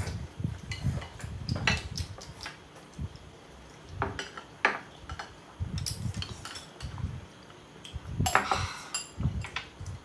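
Close-up eating sounds: chewing and slurping noodles, with chopsticks and utensils clinking against bowls and plates now and then.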